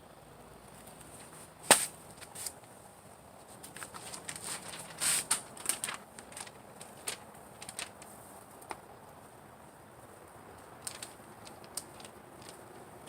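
Paper burning, with irregular crackles and pops: one sharp pop a little under two seconds in, a cluster of crackles around five seconds, and a few more near the end.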